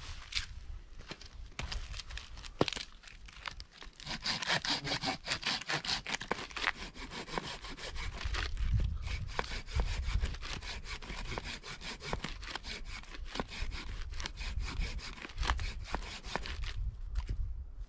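Hand saw cutting through wood, a continuous run of rasping strokes.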